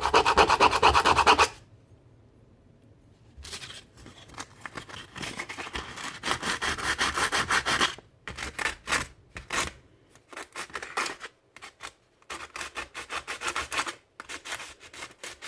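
Sandpaper rubbed back and forth by hand over a small part of a miniature model rifle, in fast even strokes. A loud run of strokes opens, then after a pause they resume steadily and break into shorter bursts toward the end.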